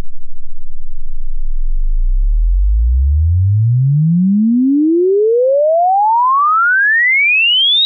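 A pure sine-wave test tone sweeping steadily upward in pitch, from a deep bass hum to a high tone: the low-to-middle part of a 20 Hz to 20,000 Hz sweep across the range of human hearing.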